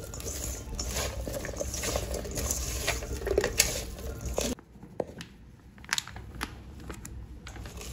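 A hand mixing and squeezing sliced onions with spice powder in a steel bowl: a moist crinkling rustle with small clicks. About four and a half seconds in it drops to a quieter stretch of sparse clicks and rustles.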